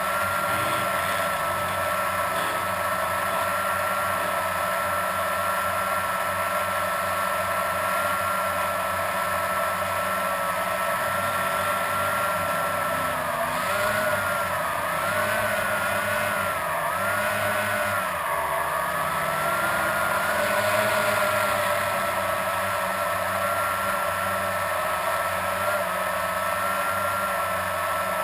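Blade 350 QX quadcopter's four brushless motors and propellers whining steadily, heard from the camera on board. About halfway through, the pitch wavers up and down several times for a few seconds as the motors change speed, then settles again.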